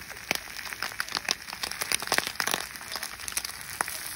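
Slices of meat frying in a non-stick pan on a camp stove, with fat spitting in quick, irregular crackling pops over a soft sizzle.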